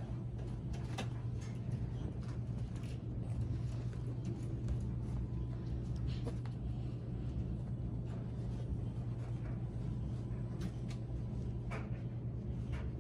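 Steady low hum in a small room, with scattered light clicks and scratches from young puppies scrabbling about on a blanket-lined wooden whelping box.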